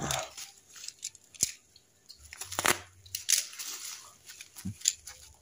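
Black plastic parcel wrapping, bound with clear tape, crinkling and crackling in irregular bursts as hands squeeze and pull at it to open it.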